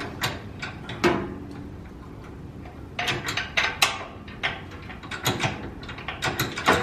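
Hand tools clicking and clinking: quick runs of short, light metallic clicks, one near the start, then a cluster about three seconds in and another from about five seconds on.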